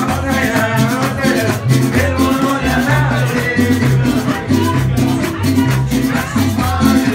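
Live mariachi band playing a lively song: strummed guitars over a steady, stepping bass line, with a melody line carried on top.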